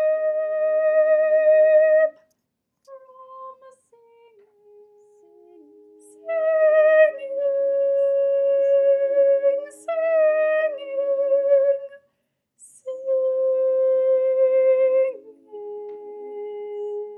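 A woman's voice sings the top part of a three-part a cappella choral arrangement, louder than the two quieter lower voice parts beneath it. It moves in long held notes with vibrato, in phrases broken by short pauses, and closes on a softer held note near the end.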